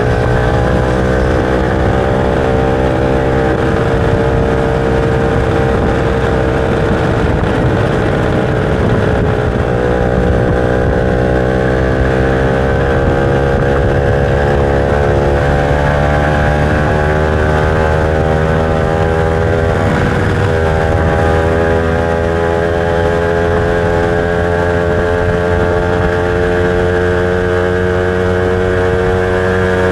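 Motorcycle engine running on the road. Its pitch climbs steadily as it pulls and drops back at gear changes, about a third of the way in and again about two-thirds in.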